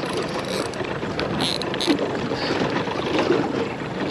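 Small aluminium dinghy under way while trolling: a steady rush of water along the hull, with wind buffeting the microphone.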